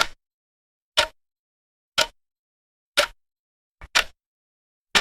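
Clock ticking, one sharp tick a second with silence between, six ticks in all; the fifth has a faint extra click just before it.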